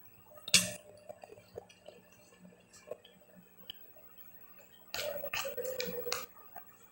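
A sharp clink of a metal spoon on a dish, then small mouth and chewing clicks. About five seconds in, a second-long slurp as liquid is drunk straight from a plastic bowl.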